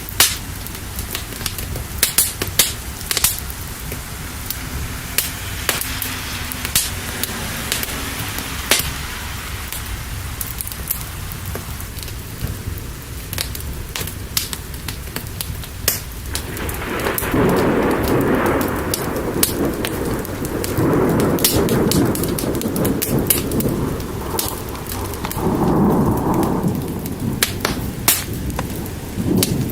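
Steady rain with the sharp pops and crackles of a wood fire throughout, and rolling thunder rumbling in the second half.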